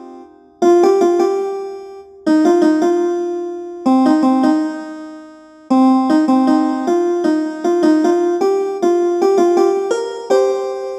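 Ringtone melody in a piano-like keyboard sound: phrases of quick, bright struck notes, the first few dying away before the next phrase starts, then a longer unbroken run.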